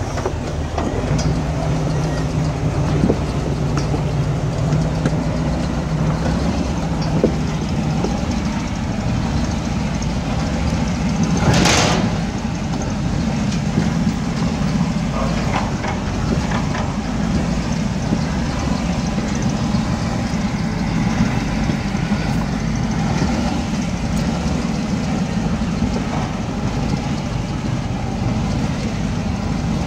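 Off-road vehicle's engine running steadily at low crawling speed as the vehicle climbs over loose rock, with occasional knocks from the tyres and chassis on the rocks. One brief, louder scraping rush comes about twelve seconds in.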